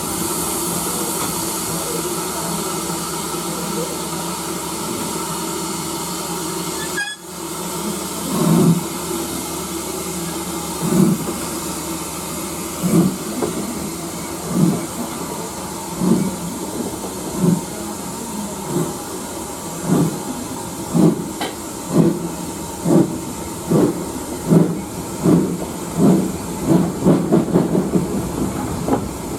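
Steam locomotive hissing steadily, then starting away with slow exhaust chuffs that come steadily quicker as it gathers speed.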